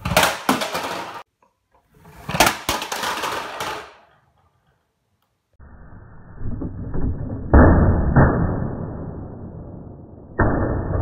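Small plastic toy cars rolling fast down a fabric ramp, two rattling runs of wheel noise, then tumbling onto a wooden floor with several sharp knocks and thuds, the loudest a little after the middle of the stretch.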